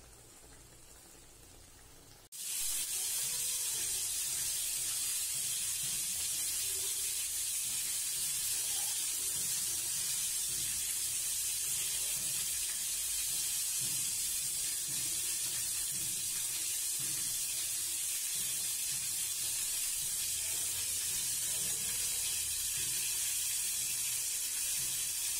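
Steady, loud hissing noise that starts suddenly about two seconds in and holds unchanged.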